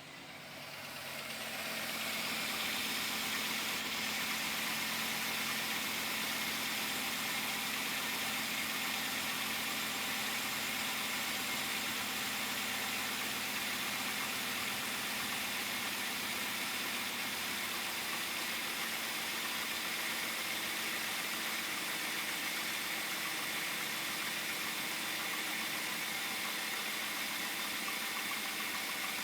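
2007 Chevrolet Avalanche V8 idling steadily after rising over the first couple of seconds. The engine is the one its owner says keeps knocking, suspecting piston slap.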